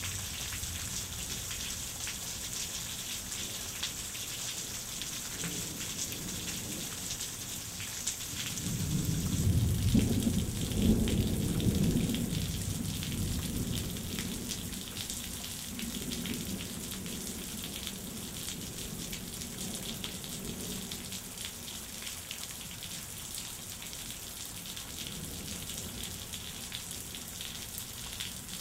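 Steady rain falling and splashing on wet ground, with a long roll of thunder that swells about a third of the way in, peaks, then slowly rumbles away. The rain's hiss grows softer as the thunder starts.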